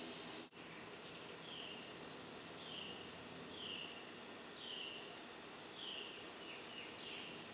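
Steady outdoor background hiss with a bird's short call, falling in pitch, repeated about once a second; the sound cuts out briefly about half a second in.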